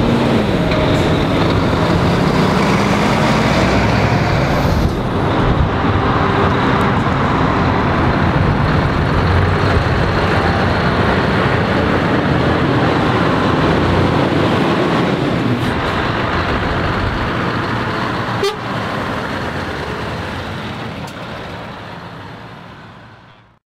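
Scania trucks' diesel engines pulling through a roundabout and accelerating away, a loud steady engine and exhaust noise that fades away near the end.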